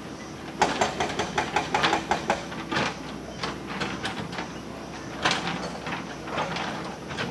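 JCB 3DX backhoe loader at work, giving a rapid run of irregular metallic clanks and knocks about a second in and another sharp knock near the middle, over the steady hum of its engine.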